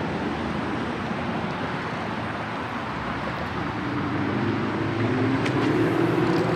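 Straight-piped, supercharged 2004 Mustang GT's 4.6-litre two-valve V8 running steadily while driving, with road noise; about halfway through the revs begin to climb gently.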